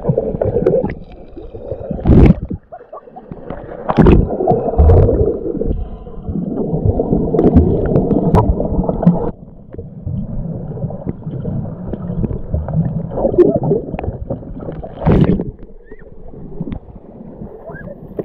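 Muffled underwater sound picked up by a submerged camera: gurgling water movement with a few loud, dull knocks as hands grapple with a large fish.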